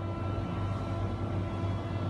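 Background music: a low, dark drone with steady held tones.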